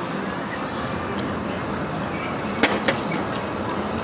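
Amusement park crowd ambience: a steady hubbub of distant voices and background noise. Two sharp clacks come close together about two and a half seconds in.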